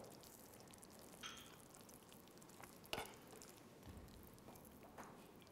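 Near silence with a few faint clicks and scrapes of a metal spoon against a frying pan as sauced tofu is spooned into a bowl; the sharpest click comes about three seconds in.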